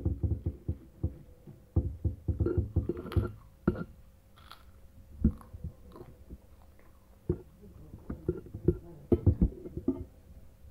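A child eating fried rice close to the microphone: irregular chewing and mouth noises with sharp clicks and knocks of a metal spoon against a ceramic bowl, heaviest near the start and again in the last few seconds.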